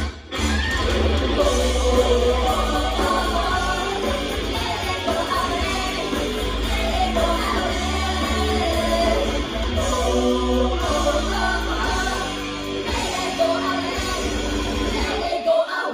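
Live idol-group pop song over a PA system: female voices singing over backing music with heavy bass. The bass drops out briefly near the end.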